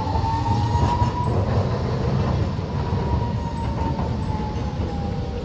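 Hiroden articulated tram running along street track as it moves away, a low rumble with a steady high whine that rises slightly and then sinks.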